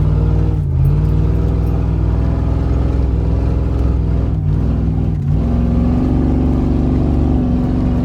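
Ford 460 big-block V8 running under way, its pitch dipping and climbing back twice as the throttle eases and comes on again, then holding steady at higher revs near the end.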